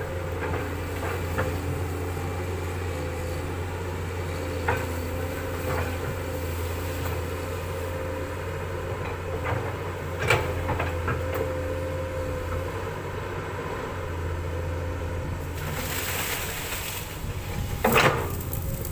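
Komatsu PC200 hydraulic excavator's diesel engine running steadily as it works, with occasional sharp knocks and clanks. Near the end comes a burst of rustling and crunching and a heavy knock as the bucket pushes into brush on the bank.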